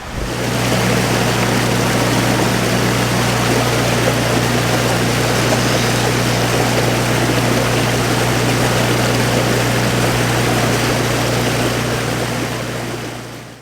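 A steady mechanical hum under a loud, even rushing noise, like a propeller or motor running, fading in at the start and fading out at the end.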